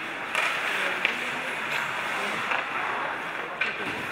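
Ice hockey play: a steady scrape of skates on the ice, with several sharp clacks of sticks and puck.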